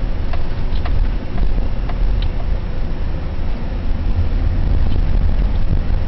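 Steady low rumble of a car's engine and tyres on the road, heard from inside the cabin while driving. A few light ticks come in the first couple of seconds.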